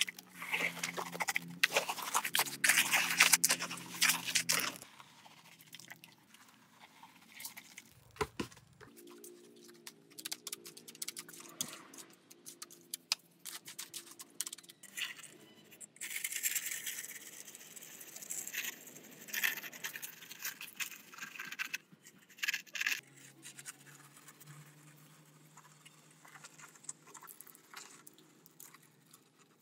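Gritty scraping of a small steel hand trowel spreading and smoothing wet concrete on a small slab, in bursts of strokes. The busiest stretches are in the first few seconds and again past the middle.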